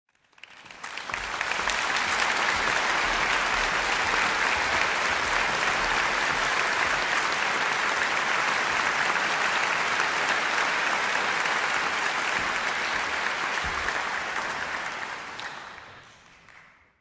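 Concert-hall audience applauding, a dense steady clapping that swells up within the first two seconds and dies away over the last two.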